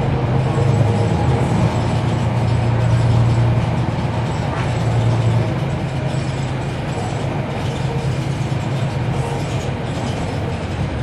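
Cummins ISL9 diesel engine of a NABI 40-foot transit bus running under way, heard from on board: a steady low drone that eases slightly about halfway through.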